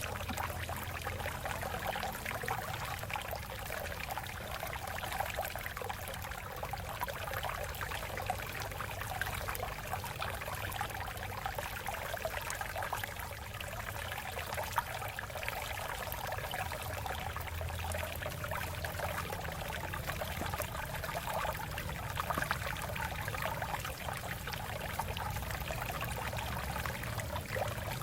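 Shallow water flowing and splashing over rocks, a steady babbling with many small splashes and gurgles, with a low rumble underneath.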